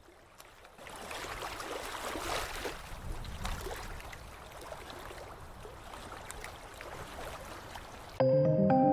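Underwater water sound effect: an even rush of water with small scattered ticks, swelling in over the first couple of seconds. Near the end, gentle background music starts abruptly and much louder.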